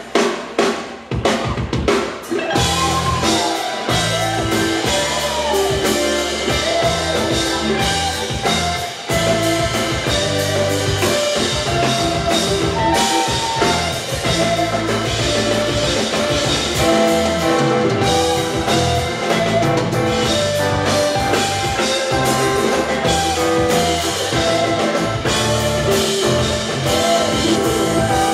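Live rock band playing an instrumental jam: drum kit, electric bass and guitar, with melodic lines bending in pitch. A few sharp drum strikes with short gaps open it, and the full band sound is steady from about two seconds in. Heard from within the crowd of a club.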